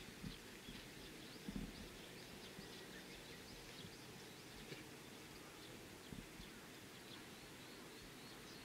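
Faint outdoor ambience with scattered, faint high bird chirps.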